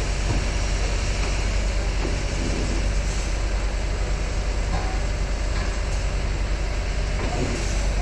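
Heavy diesel engine running steadily at a low, even speed, from the machinery used to load an excavator onto a truck.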